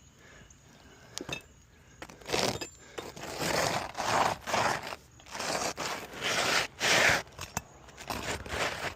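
An asphalt roofing shingle scraping and rustling in a series of short, rough strokes as it is worked back into place under the shingle course above, its gritty granules rubbing against the neighbouring shingles.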